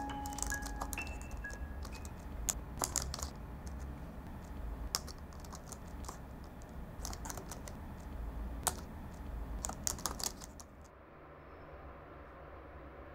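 Typing on a laptop keyboard: irregular key clicks that stop about eleven seconds in, leaving a faint steady hum.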